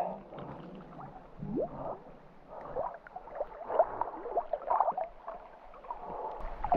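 Water sloshing and splashing lightly around a person floating on their back in a cave pool, in small irregular splashes and gurgles.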